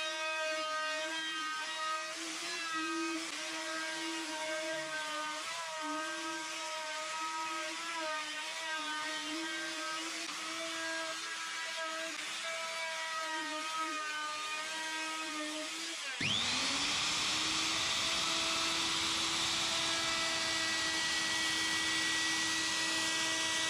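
Makita plunge router running as it routes a rebate into the timber benchtop, its whine wavering slightly under load. About 16 seconds in, the motor spins up again with a quickly rising whine, then runs steady and louder.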